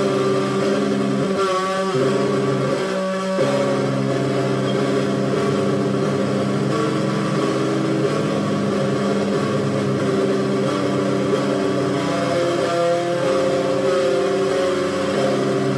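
Squier Stratocaster electric guitar played through an amplifier, ringing chords held and changed every few seconds.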